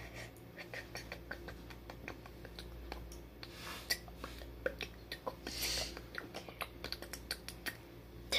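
Rapid, irregular tapping on a phone's touchscreen, several sharp taps a second, with a couple of short breathy rustles in the middle.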